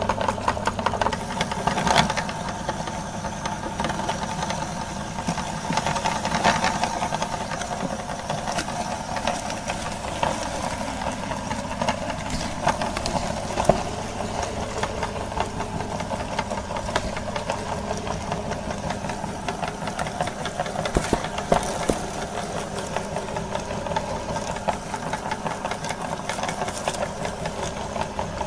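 Electric meat grinder running steadily while grinding apples, its motor humming under load, with constant crackling as the apple is crushed through the auger and plate and a few sharper cracks.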